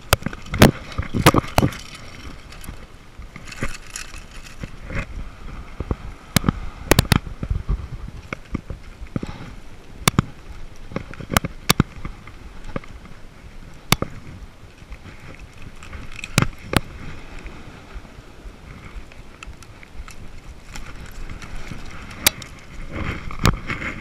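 Irregular sharp clicks and knocks of hands working with pliers, tackle and a small bluefish being unhooked, with a sleeve brushing close to the camera, over a steady background hiss.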